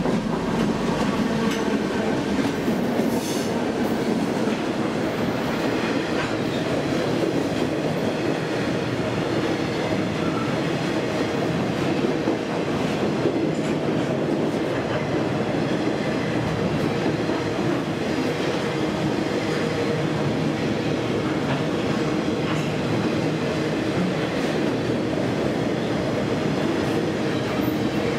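CSX maintenance-of-way rail train passing close by at speed: the locomotives go by as the sound jumps up at the start, then flatcars loaded with long steel rails roll past with a steady, loud rolling and rumbling of wheels on track.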